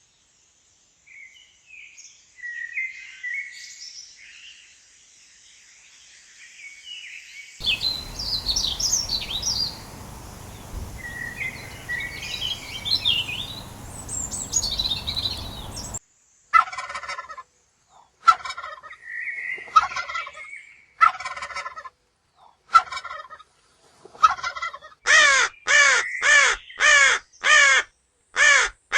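A run of bird calls from several different recordings cut one after another: high chirping, then fowl-like calls over a background hiss, and near the end a fast, even series of harsh repeated calls.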